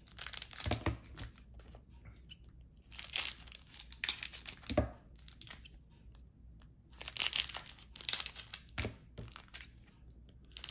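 Trading cards being handled and sorted: three spells of dry paper-and-plastic rustling, each ending in a light knock as a card is set down.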